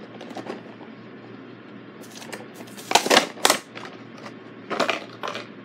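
Hot Wheels Monster Trucks cardboard-and-plastic blister packaging being torn open by hand: several short crackling, ripping bursts starting about two seconds in, the loudest around three seconds in.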